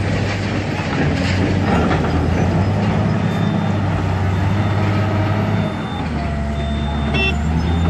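Large wheel loader's diesel engine running as the machine digs into a coal heap: a loud, steady, low engine note that shifts slightly about six seconds in.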